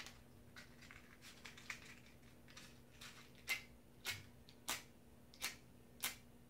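A matchstick struck again and again on the side of its box, a short sharp scrape about every 0.6 seconds, not yet catching. Fainter ticks of handling come before the strikes.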